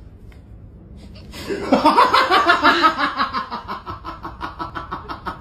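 A person laughing in quick, repeated 'ha-ha' pulses, several a second. It starts about a second in, is loudest soon after, and tapers off toward the end.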